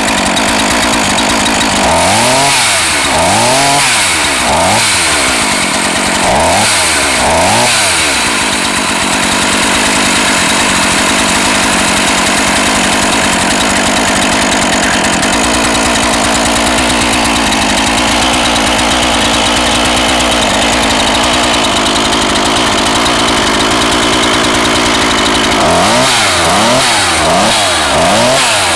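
NEO-TEC NH 841 two-stroke gas chainsaw engine being revved in a series of quick throttle blips, its pitch rising and falling about five times, then settling to a steady idle before more blips near the end. The saw is on test while its carburetor idle setting is being adjusted.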